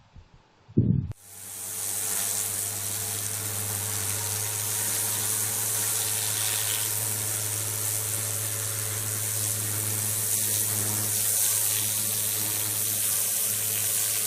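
Greenworks 3000 PSI electric pressure washer running steadily: a constant motor and pump hum under the hiss of the high-pressure water spray, starting about a second in.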